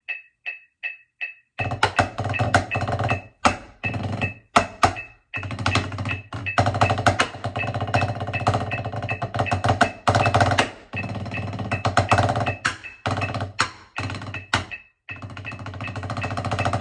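Drumsticks playing a fast rudimental snare lick on a rubber practice pad at 160 beats per minute, with accents, rolls and triplet runs broken by short pauses. A metronome ticks on each beat; it gives four clicks of count-in before the playing starts about a second and a half in.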